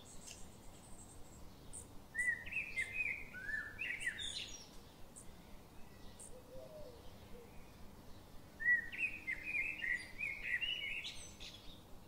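A songbird singing two short warbling phrases of quick chirps, the first about two seconds in and the second near the end, with faint high ticks between.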